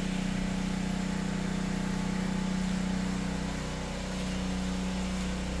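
A machine running steadily at constant speed, giving an even low hum.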